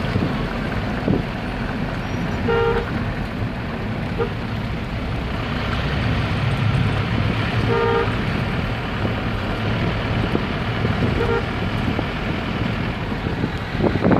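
Engine and road noise of a moving vehicle, heard from inside it, steady throughout. A vehicle horn toots four short times, spread through the clip.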